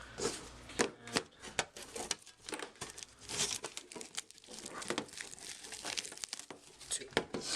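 Plastic wrapping crinkling and tearing as Yu-Gi-Oh card tins are unwrapped and opened, with irregular crackles and sharp clicks of handling throughout.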